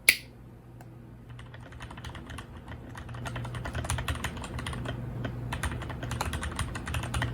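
Typing on a custom-built mechanical keyboard: a rapid, continuous run of key clicks and clacks that starts faintly and grows louder and steadier after a few seconds. A steady low hum runs underneath.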